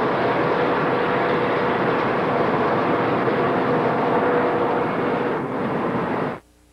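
Amtrak Superliner passenger cars rolling past at close range: a steady roar of wheels on rail. The sound cuts off suddenly about six seconds in, dropping to near silence.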